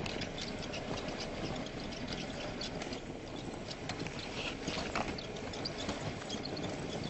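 Small stones crunching and clicking under the tyres of a 1/10-scale RC rock crawler as it creeps over gravel, with a steady hiss underneath.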